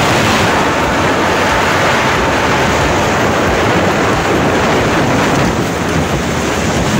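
Loud, steady rushing noise of wind and road noise from a moving car.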